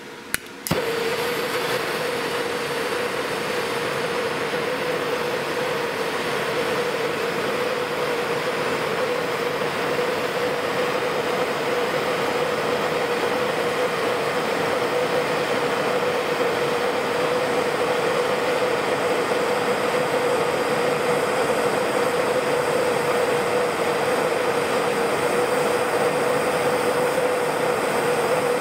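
Bernzomatic TS8000 trigger-start propane torch lighting with a click of its igniter about half a second in, then burning with a steady hiss that carries a constant tone.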